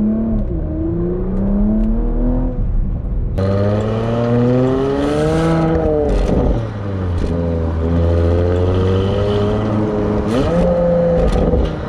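2020 Porsche Macan Turbo's 2.9-litre twin-turbo V6 pulling under acceleration, first from inside the cabin and then, about three seconds in, close to the exhaust tips, where it is louder. The engine note rises, falls back about six seconds in, holds steady, then rises briefly again near the end.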